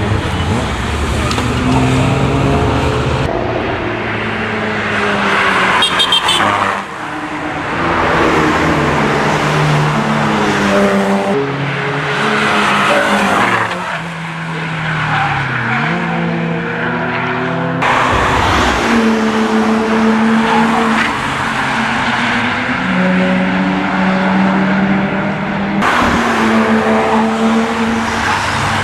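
Several cars driven hard past on a race track, one after another. Their engines rev up and down through the gears and under braking, and the sound changes abruptly several times.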